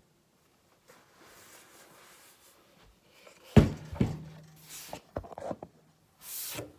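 A couple of sharp knocks about halfway through, the second with a short low hum after it, then a few smaller clicks and a short rustle near the end: objects being handled and set down.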